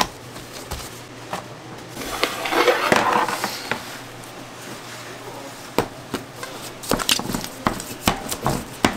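Bakery work sounds: scattered knocks, taps and clatter of utensils and trays. A louder rustling, scraping stretch comes about two to three and a half seconds in, and the knocks come thicker near the end.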